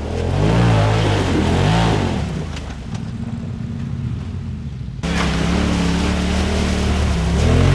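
Side-by-side UTV engines revving up and down as the machines climb a rocky creek ledge, with water splashing. About five seconds in, the sound switches abruptly to a second machine running at steadier, higher revs.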